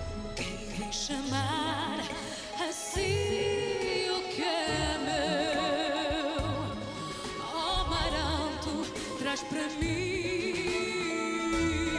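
A woman's soprano voice singing a Portuguese ballad with wide vibrato, held notes sliding from one pitch to the next, over instrumental accompaniment with a low pulse.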